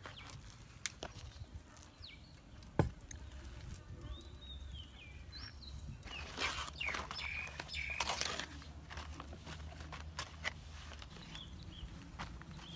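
Birds chirping now and then over a quiet outdoor background, with a single sharp knock about three seconds in and a stretch of rustling and scraping around the middle.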